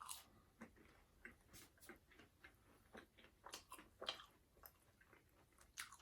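Faint close-up chewing of a mouthful of burger, with soft wet mouth clicks and smacks at irregular intervals.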